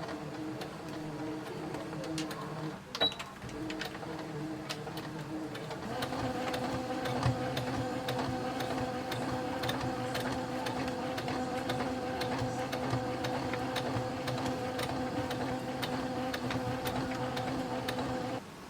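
Electric sewing machine stitching, its motor running steadily over a fast patter of needle strokes. It pauses briefly about three seconds in, runs on at a changed pitch from about six seconds, and stops just before the end.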